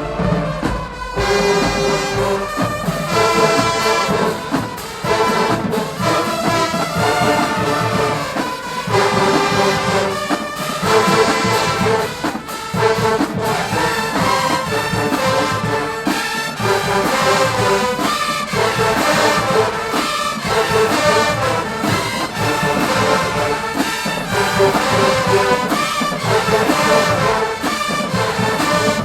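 College marching band playing a brass-heavy tune: trombones, trumpets and other horns over a driving drum beat.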